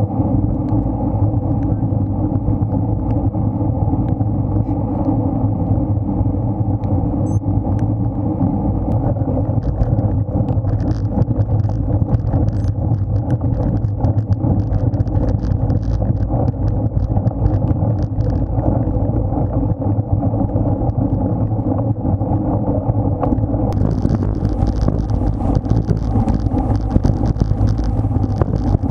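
Wind and road noise rumbling steadily on a bicycle-mounted action camera's microphone while riding in a road race on wet roads. Near the end, a higher hiss joins in.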